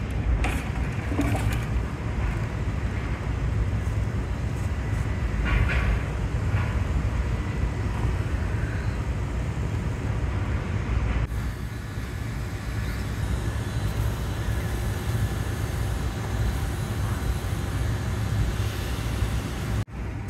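Steady low roar of a glassblowing studio's furnace burners and ventilation fans, with a short hiss about five and a half seconds in.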